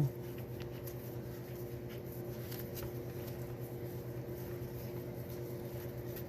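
Steady background hum with a few faint light clicks in the first few seconds, from small metal parts of the gear selector being handled.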